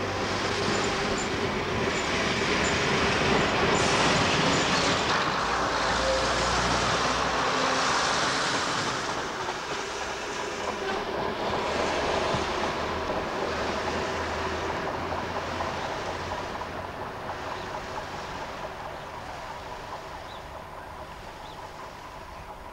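First-generation British Rail diesel multiple unit passing close by, its underfloor diesel engines running and its wheels rolling on the rails. Loudest in the first third, then fading steadily as it moves away.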